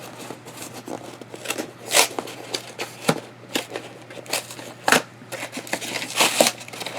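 A mail package being opened by hand: light rustling and crackling of packaging, broken by about five louder, sharp rasping rips spread unevenly through.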